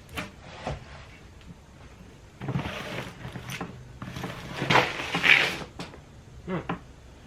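A small storage case being handled and opened: a few sharp clicks, then stretches of rustling and scraping as its contents are rummaged through, and a couple more clicks near the end.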